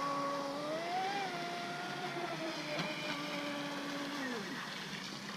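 Traxxas Spartan RC boat's brushless electric motor and prop whining as it runs across the water, the pitch rising slightly about a second in and holding. The whine then drops in steps and dies away about four and a half seconds in as the throttle comes off, the battery nearly at low-voltage cutoff.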